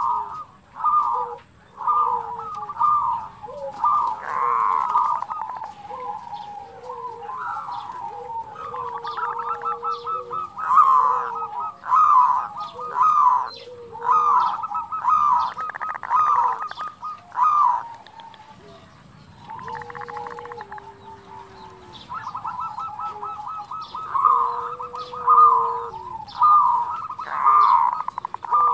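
Zebra doves (perkutut) cooing in repeated staccato phrases, the 'bekur' call, broken by rapid rattling trills of the 'kerot' call. It eases off for a few seconds in the middle, then the calls pick up again.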